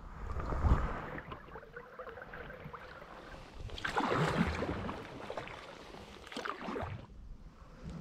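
Kayak paddle dipping and splashing in the water in irregular strokes, with water sloshing along the hull; the loudest splashes come near the start and about four seconds in.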